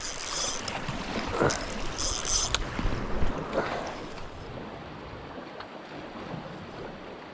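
Sea washing against rocks, with wind on the microphone. Two short high-pitched hissing sounds come near the start and about two seconds in. After about four seconds the sound turns quieter and duller.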